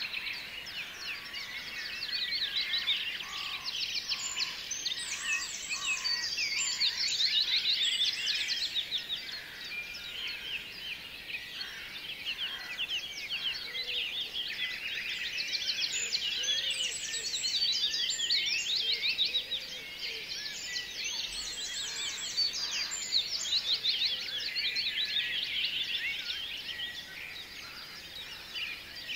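A dense chorus of many birds chirping and twittering, a continuous tangle of short, quick calls overlapping one another.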